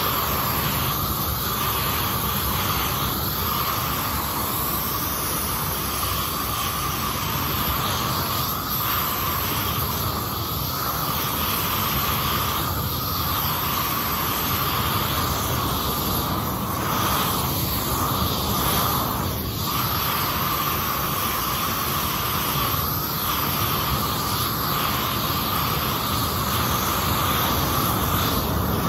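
Propane weed burner torch burning with a steady hiss as its flame chars wooden boards black.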